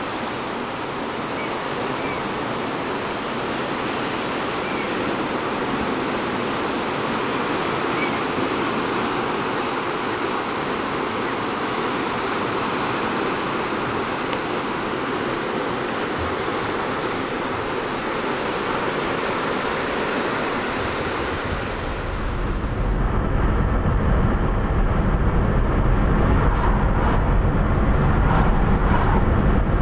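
Ocean waves washing over a rocky, pebbly shore: a steady rushing surf hiss. About 22 seconds in it gives way to the low rumble of road and engine noise inside a car driving on a highway.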